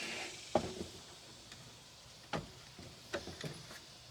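A handful of light knocks and clicks at irregular intervals, the loudest about half a second in, typical of wood and objects being handled in a tight cabinet space.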